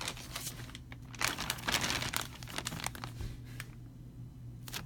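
Clear plastic packaging bag crinkling as it is handled, loudest and densest for about two seconds in the middle, over a faint steady hum.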